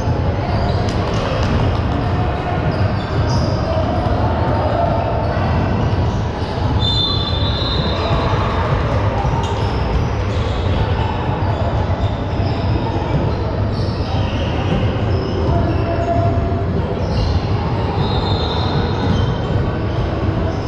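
Basketball game sounds: a ball dribbling on a court amid steady crowd noise and voices, with a couple of brief high squeaks about seven and eighteen seconds in.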